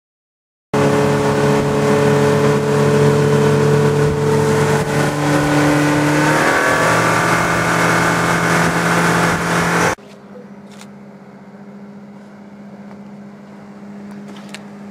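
Motorboat engine running at speed under a loud rushing hiss of water; its pitch drops slightly about six seconds in. It cuts off abruptly to a much quieter, steady engine hum with a few faint clicks.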